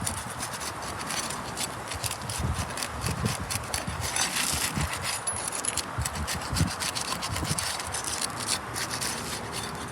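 Asphalt shingle tabs being pulled up off the course below: a steady run of scraping and rubbing with many small crackles as the sealant strips let go. The shingles are adhering poorly, with debris underneath them.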